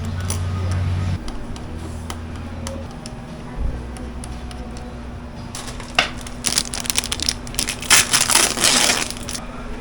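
Clicks and crinkly rustling of computer hardware and packaging being handled, thickest and loudest in the second half, over a low steady hum.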